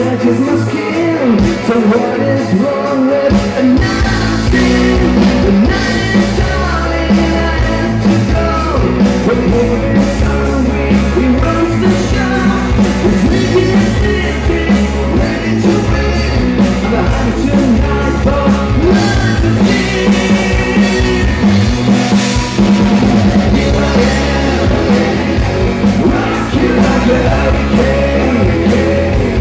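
Live rock band playing: a man singing over bass guitar, electric guitar and a drum kit with a steady beat.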